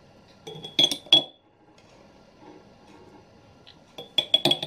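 Metal spoon clinking against a glass jar as apple jam is spooned into it: three ringing clinks about a second in, then a quicker run of clinks near the end.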